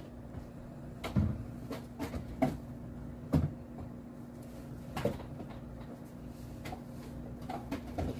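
Scattered knocks and thumps of a freezer door and plastic storage containers being handled and put away, the loudest a little over a second in and about three and a half seconds in, over a steady low hum.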